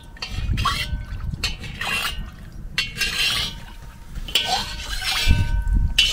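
Sunflower oil being poured from a bottle into a hot kazan, in irregular glugs and splashes, with wind buffeting the microphone as a low rumble.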